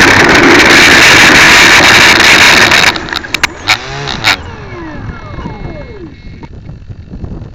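Loud rushing wind-and-motor noise from a small motorised vehicle carrying the camera low over tarmac. It cuts off sharply about three seconds in, followed by a few knocks and a whine that falls steadily in pitch as the motor winds down and the vehicle stops.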